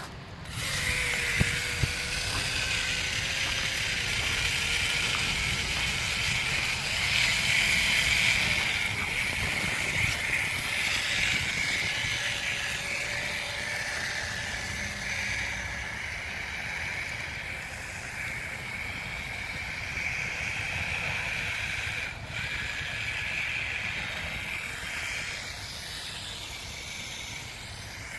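Homemade RC 4x4 truck on 3D-printed skis driving through snow: a steady high motor-and-gear whine over a hiss, swelling a quarter of the way in and easing off later as the throttle changes.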